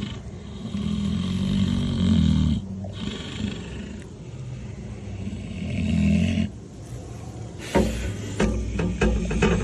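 A sleeping pig snoring, with long low rasping breaths a few seconds apart. Near the end comes a run of sharp clicks and knocks.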